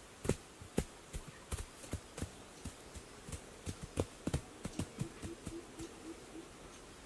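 Dull thumps of hands patting grass turf down onto an earth roof: an irregular run of about three pats a second that grows softer.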